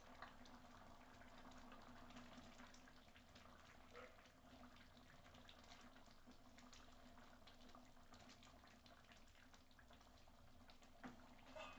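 Thick rajma curry simmering in a pan: faint bubbling and popping, over a steady low hum.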